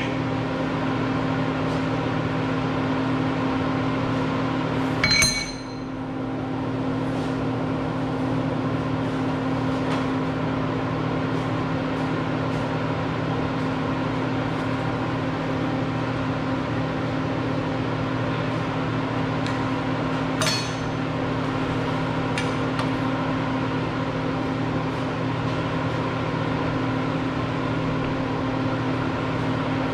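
Steady electric machine hum with fixed tones. A sharp metallic clink rings out about five seconds in, and a smaller knock follows near twenty seconds.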